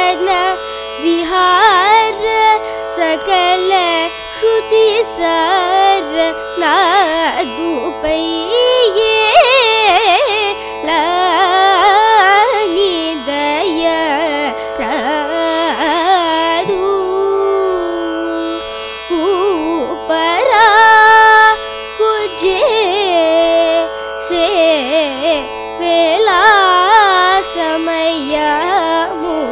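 A young girl singing Carnatic vocal music in raga Atana, her voice sliding and bending through ornamented phrases over a steady drone, with one long held note about two-thirds of the way in.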